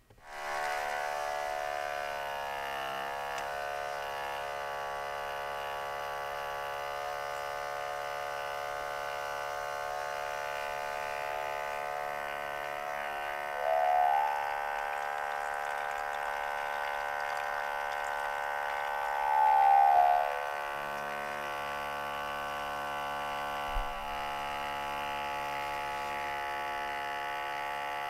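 Outin portable electric espresso machine running: its small pump switches on and buzzes steadily, with two brief louder swells partway through.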